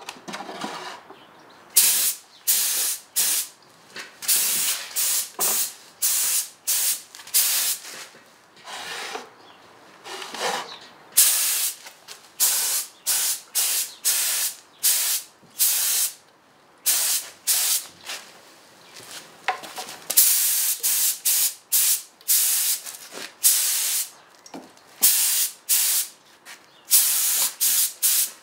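Compressed-air spray gun with a paint pot beneath, spraying paint in many short hissing bursts, one per trigger pull, each under about a second with brief gaps between.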